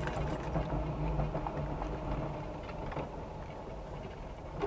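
Car engine running at low speed, heard from inside the cabin as the car rolls slowly: a steady low hum that eases off a little toward the end.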